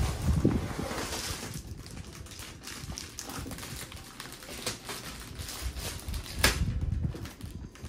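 Plastic bags of LEGO bricks crinkling as they are handled and lifted out of the box, with the loose bricks inside rattling and a few sharp knocks, the loudest about six and a half seconds in.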